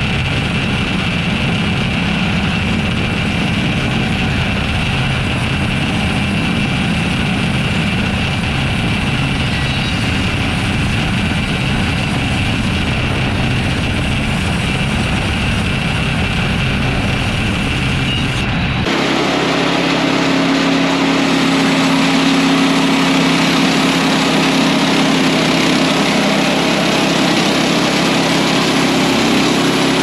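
Woodland Mills HM130MAX portable bandsaw sawmill running steadily, its gas engine driving the band blade through a log. About two-thirds of the way through, the sound changes abruptly and a steady low hum becomes the strongest part.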